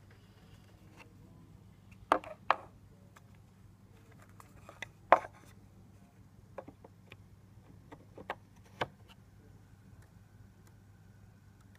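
Sharp knocks and clicks of a DIY CNC mill's metal and plastic parts being handled as the spindle assembly is moved aside and a Z-axis plate is set on the carriage: about eight separate knocks, the loudest about two and five seconds in. A faint steady hum runs underneath.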